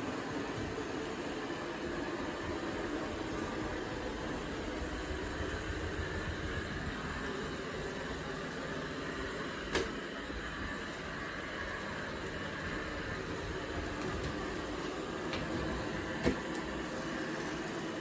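Anker eufy robot vacuum cleaner running: a steady whir of its suction motor and brushes, with two short sharp knocks, about ten and sixteen seconds in.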